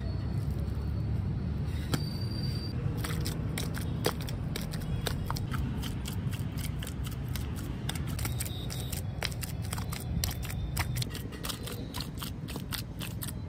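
Wet clay being trodden with bare feet: a dense, irregular run of sharp sticky clicks and squelches, starting a few seconds in, over a steady low rumble.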